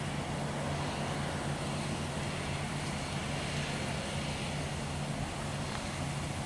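Tractor engine running at a steady speed, a constant low drone.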